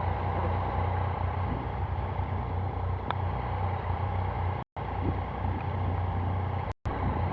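Motorcycle engine running at a steady speed with wind and road noise, the sound cutting out completely twice for a split second.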